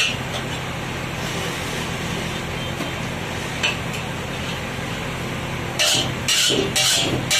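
Steady hiss from the gas stove under a large iron wok, with the steel ladle clinking and scraping against the wok, one knock about halfway and a quick run of clinks from about six seconds in.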